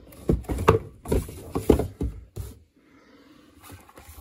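Unboxing noises: polystyrene foam end caps and cardboard box knocking and scraping as a boxed UPS in its plastic bag is pulled out. The knocks come thick for the first two and a half seconds, then give way to a faint rustle.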